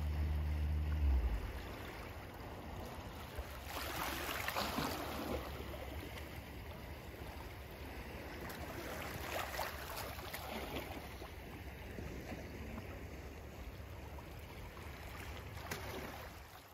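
Small waves lapping and washing against the shore, over a steady low rumble. A low hum sounds for about the first second.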